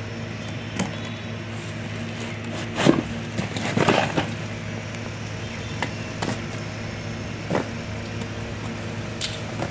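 Packing tape on a cardboard shipping box being slit and scraped open with a pointed tool: scattered short scratches and clicks, with a longer rasping tear about four seconds in. A steady low hum runs underneath.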